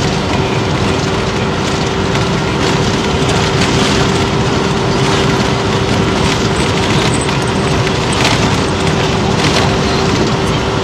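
Inside a Toyota car at about 160 km/h: a steady roar of wind, tyre and engine noise with one steady droning tone through it.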